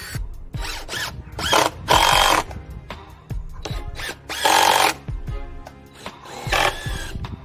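Cordless drill driving screws into pallet wood in several short bursts of about half a second each. The last burst winds down in pitch as it stops. Background music plays underneath.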